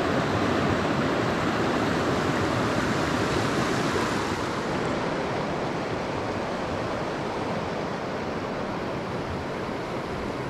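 Fast-flowing river with a strong current, rushing steadily.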